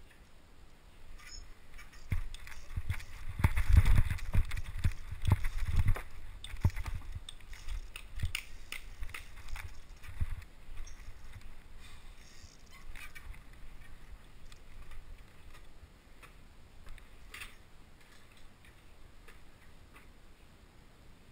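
Trials mountain bike ridden and hopped over grass and wooden obstacles: a run of knocks and thumps as the bike lands, heaviest between about two and six seconds in, then lighter scattered clicks and taps.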